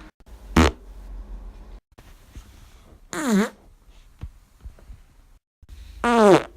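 Three farts: a short one about half a second in, then two longer ones around three and six seconds in, each with a tone that falls in pitch.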